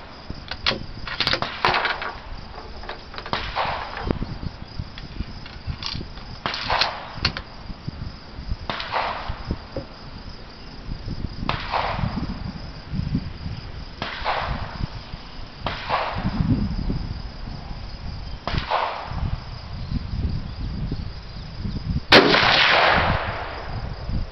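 Rifle shots at an outdoor shooting range: a series of quieter shots every couple of seconds, each with a short echo, then one much louder, sharp shot near the end with a longer echo, from the scoped bolt-action rifle fired from the bench.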